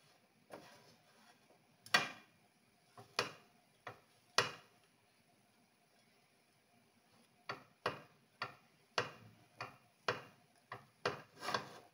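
A metal fork clicking and scraping against a non-stick frying pan as halved bread rolls are turned and pushed around: irregular sharp clicks, with a pause of about three seconds midway and a quicker run near the end.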